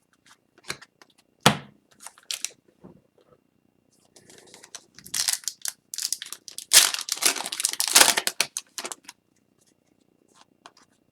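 An Upper Deck hockey card pack wrapper being torn open and crinkled, with scattered light rustles and clicks before it. The crinkling is thickest in the middle stretch and then dies away.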